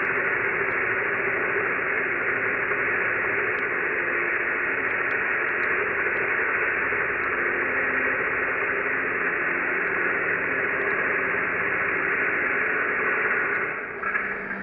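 Angle grinder cutting down steel wheel studs clamped in a vise: a steady, loud grinding hiss that dies down near the end.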